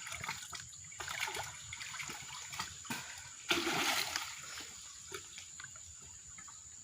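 Shallow water splashing and trickling in small scattered splashes, with one louder splash about three and a half seconds in.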